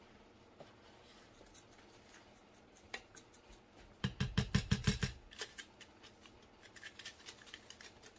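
A plastic spice shaker being shaken, its contents rattling out in quick clicking taps. The heaviest shaking comes about four seconds in and lasts about a second, and lighter shakes follow near the end.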